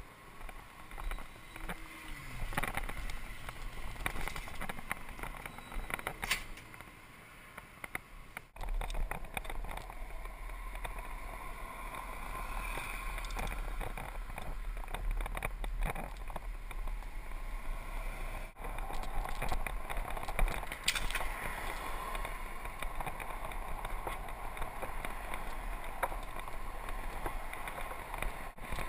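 Wind and riding noise on a GoPro camera's microphone as a Mongoose mountain bike is ridden along a street: a steady low rumble and hiss that sets in about eight seconds in, with small rattles and knocks from the bike.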